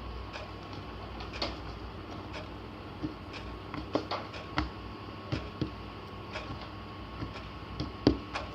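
Slime being handled and kneaded, giving irregular sharp clicks and small pops, over a steady low hum.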